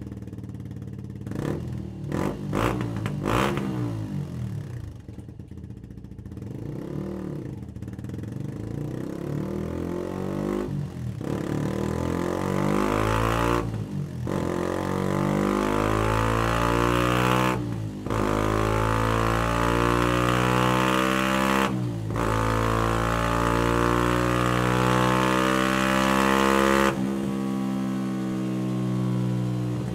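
Benelli BN 125's single-cylinder four-stroke engine running through a Scorpion stainless full exhaust system with Serket Taper silencer on a dynamometer. It idles with a few quick throttle blips, then makes a long pull up the revs with brief breaks every few seconds. Near the end the throttle shuts and it drops back.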